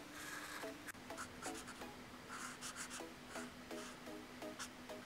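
Black fiber-tip marker rubbing on squared notebook paper in quick short strokes, a few a second, as grid cells are filled in.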